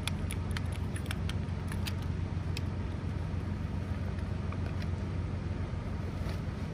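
Steady low hum of an engine running, with scattered light clicks and rattles of folded Helinox cot legs being handled and pushed into their bag, more of them in the first couple of seconds and again near the end.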